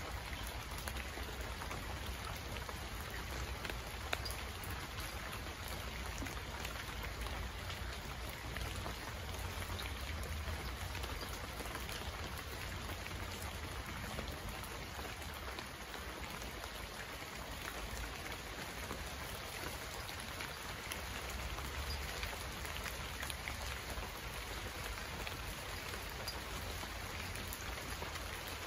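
Steady heavy rainfall: a dense, even hiss with scattered individual drops ticking through it and a low rumble underneath.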